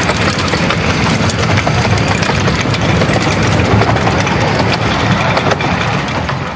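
Miniature steam train passing close: the coaches roll by with a dense run of wheel clicks and rattles over the track, while the steam locomotive works hard up ahead.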